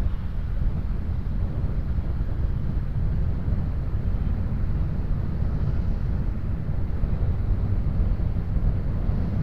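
Wind buffeting the camera microphone on a moving Honda Scoopy 110 scooter, a steady low rumble mixed with road noise.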